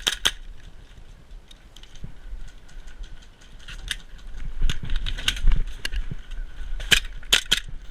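Scattered sharp clicks and pops from airsoft guns firing, with a cluster of louder shots near the end.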